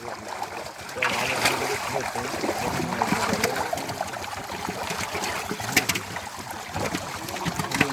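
Pond water splashing and trickling as a long fishing net is worked through it, with a few sharp knocks and faint voices in the background.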